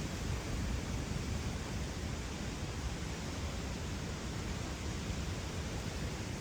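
Steady rushing rumble of wind buffeting the microphone, heaviest in the low end and fluttering irregularly, with no distinct events.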